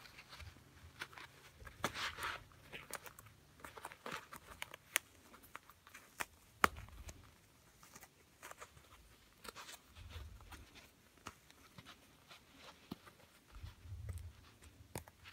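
Hands working a replacement ear pad's tabs into a headphone's plastic retainer ring: quiet rustling of the pad and scattered small plastic clicks, with one sharper click about six and a half seconds in and a few dull handling thumps.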